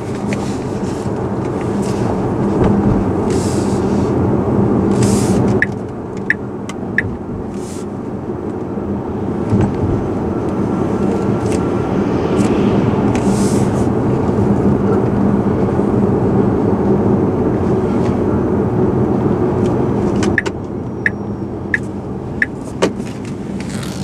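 Tyre and road noise from a Tesla Model S's front axle as the car drives, picked up by microphones fixed to the front suspension. There is a steady hum under it. The noise drops a little about six seconds in and again near the end, and in those quieter stretches there are a few short, sharp clicks.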